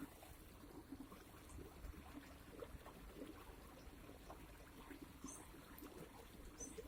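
Near silence: faint outdoor ambience with a light trickle of water and a few small scattered ticks.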